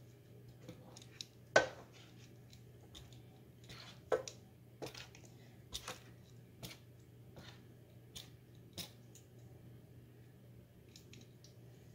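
Kitchen tongs clicking and tapping against an aluminium baking pan as wet wool roving is pushed around in it: a handful of scattered sharp knocks, the loudest about one and a half seconds in, over a steady low hum.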